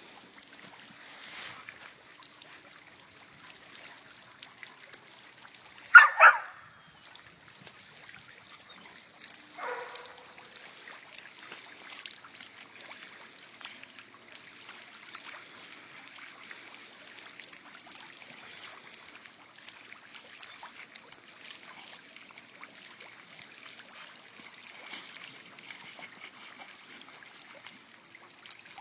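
Fountain water trickling and splashing steadily, with a pit bull giving one loud, short double bark about six seconds in and a quieter, shorter call about four seconds later.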